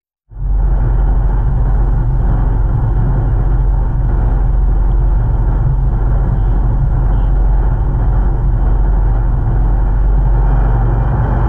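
Outboard motor running steadily, pushing a small boat along; loud and unchanging.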